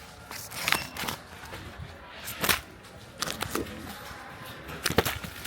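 Handling noise: several short, sharp clicks and rustles, the loudest near the end.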